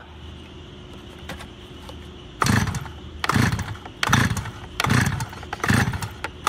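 Stihl two-stroke cut-off saw being pull-started on full choke. Starting about two and a half seconds in, the recoil starter cord is yanked five times, about once every 0.8 s, and the engine turns over with a pitch that falls on each pull without yet catching.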